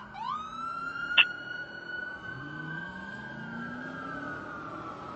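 Fire engine siren changing from a fast yelp to a wail: it sweeps up quickly at the start, holds a steady high tone, then begins to wind down near the end. A single sharp, short loud crack about a second in.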